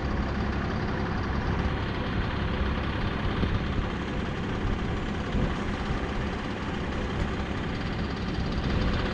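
An engine idling steadily, with a low, even running sound that doesn't change.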